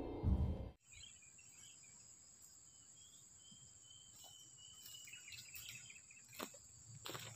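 Guitar music cuts off under a second in. After it comes faint outdoor ambience: a steady, high insect drone, with a fainter, lower whine that slowly falls mid-way. Footsteps on dry leaf litter come in near the end.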